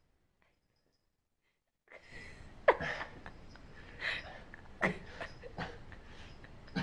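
Silence for about two seconds, then a person's short, sharp breaths and snorts, several of them roughly a second apart, the loudest a little under three seconds in.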